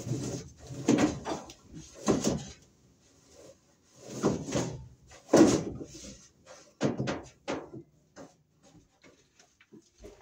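Electrical cable being pulled through the overhead floor joists, scraping and rubbing against the wood in a series of irregular drags about half a second long. A few light clicks and knocks follow near the end.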